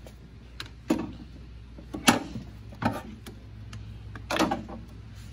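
Scattered sharp clicks and knocks, about five in a few seconds at uneven times, as a replacement heater core is pushed and pried into the heater box of a Ford Bronco II with hands and a screwdriver. A low steady hum runs underneath.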